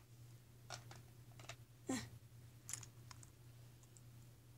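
A few faint, scattered clicks and taps of small plastic toy figures being handled and set down on the playset, the loudest about two seconds in, over a low steady hum.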